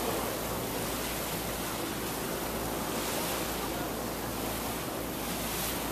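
Steady rush of wind and water heard from a moving boat on open water, with a low steady hum underneath.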